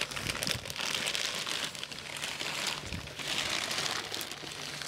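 Pink anti-static plastic bag crinkling and rustling as it is pulled down off a large amplifier, in several swells of crackly plastic noise.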